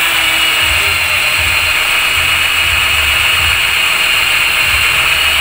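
Cordless drill running at a steady speed with its bit pressed into a hardwood baluster-and-rail joint, a constant high whine that stops abruptly at the end.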